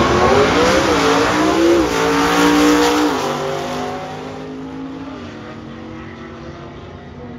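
Manual-transmission drag race car running down the strip at full throttle. The engine pitch climbs and drops sharply at each gear change, several times, and the sound fades as the car pulls away.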